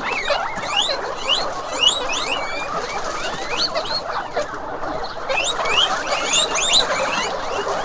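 Many small animals squeaking at once: a dense, steady chorus of short, rising high-pitched squeaks that overlap one another.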